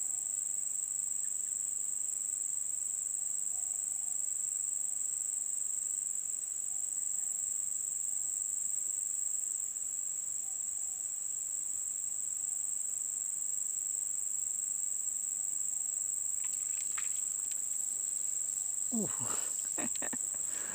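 Steady, unbroken high-pitched chorus of insects, crickets or the like, droning on one tone. A few louder sweeping sounds come in near the end.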